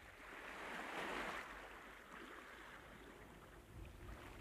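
Sea water rushing and splashing along a moving boat's hull, a steady wash that swells about a second in and then settles.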